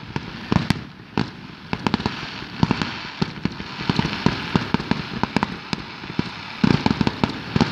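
Fireworks display: irregular bangs and pops over a steady crackle, with a dense cluster of bangs near the end.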